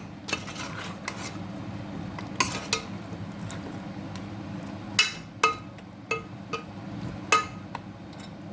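A utensil stirring potatoes in a cooking pot, striking the pot with several sharp clinks, over a steady low hum.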